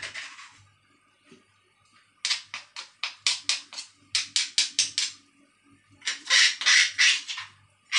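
Stone pestle pounding curry paste in a black stone mortar, in runs of quick strikes about five a second with short pauses between runs.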